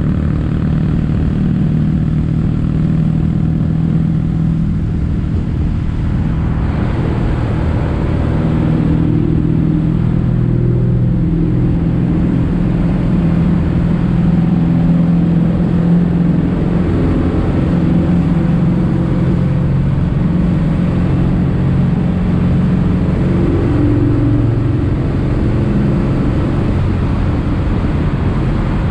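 Kawasaki W800's air-cooled parallel-twin engine running through Yamato stainless-steel Cabton-style silencers, with their standard exhaust note. The note rises and falls a few times as the bike is ridden.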